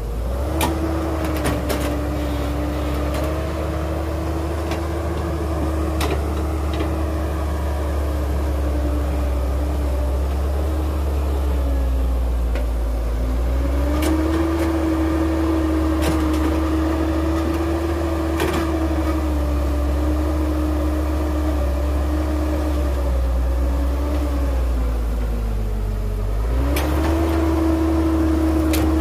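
Heavy diesel engine of earthmoving machinery running under load, its pitch stepping up and sagging back in repeated cycles of about thirteen seconds, with occasional sharp knocks and clanks.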